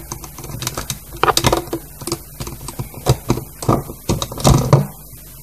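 Irregular light clicks and taps of rubber loom bands being lifted and snapped off the pegs of a plastic loom, with fingertips knocking on the plastic. The taps come in small clusters and stop shortly before the end.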